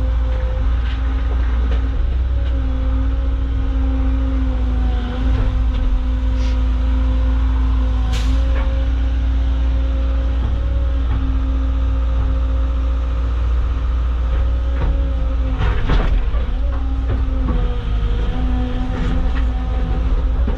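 Caterpillar excavator's diesel engine running steadily under hydraulic load, its pitch shifting slightly as the hydraulics work. Sharp clanks and scrapes stand out about eight seconds in and again around sixteen seconds, as the bucket digs into rock.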